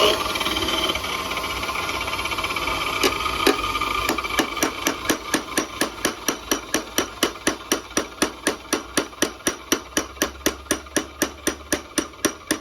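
Repeated hammer-like strikes on metal at an even pace of about three a second, starting about four seconds in. Before them there is a steady mechanical whir.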